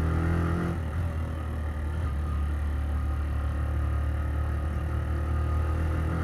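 Suzuki GN125's single-cylinder four-stroke engine running steadily while the motorcycle is ridden along the road; its note eases a little about a second in and picks up again near the end.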